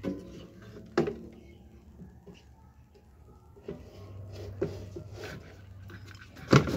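Scattered clicks and knocks of a CRT TV's circuit board and chassis being handled and fitted back into the set, the loudest a sharp clack near the end.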